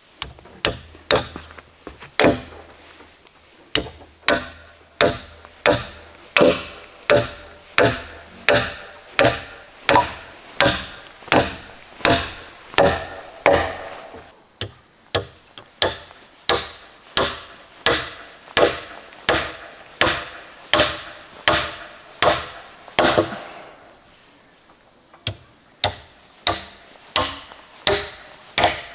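Wood being chopped with a blade: a steady run of sharp chopping strokes, about two a second, with short pauses about halfway and again near the end.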